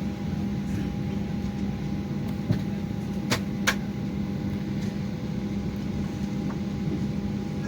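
Steady hum of a parked Boeing 737-800's cabin air-conditioning, with constant low tones. Two sharp clicks come in quick succession about three and a half seconds in.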